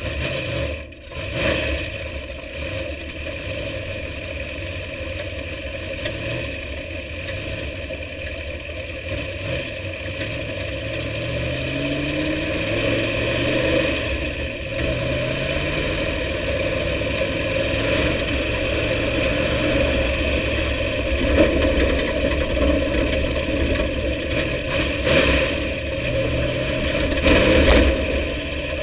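Dirt-track race car's engine running, heard from inside the car, mostly a steady idle-like rumble with its pitch rising and falling a few times about halfway through. A couple of short knocks sound later on, the loudest near the end.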